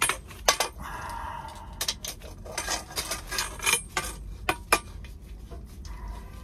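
Irregular metallic clinks and scrapes from a half-inch copper water pipe being worked by hand, metal knocking against metal, with a couple of louder knocks a little past the middle.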